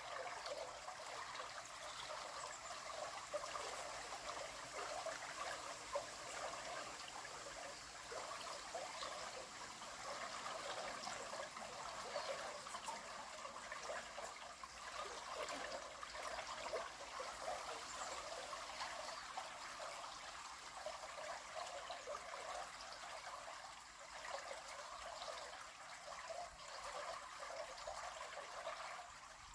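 River water flowing, a steady trickling and rushing with no break.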